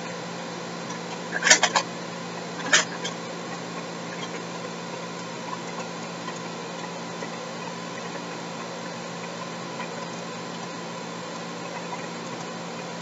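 Steady background hiss and electrical hum, with a quick cluster of sharp clicks about one and a half seconds in and a single click just before three seconds.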